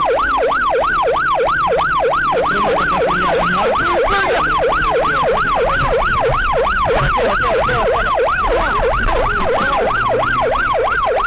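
Emergency vehicle siren in rapid yelp mode, its pitch sweeping up and down about three times a second, with a faint low rumble underneath. It cuts off abruptly at the end.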